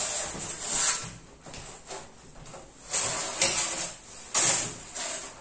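Large styrofoam panels sliding and scraping across a plywood tabletop and rubbing against each other as they are pushed into place: several short scrapes, the loudest about three and four and a half seconds in.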